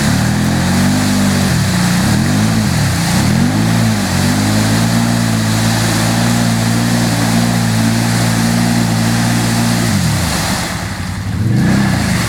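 ATV engine revving hard in deep mud: the revs rise and fall several times, then hold high and steady for about six seconds before dropping, and rise once more near the end.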